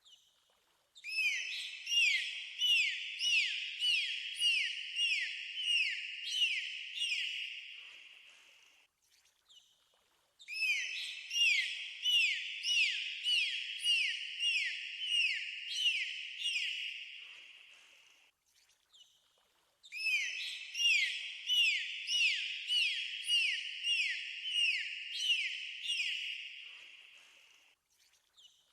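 Dolphin whistles: short downward-sweeping chirps, about three every two seconds, in three bouts of about eight seconds each. Each bout fades away before the next begins.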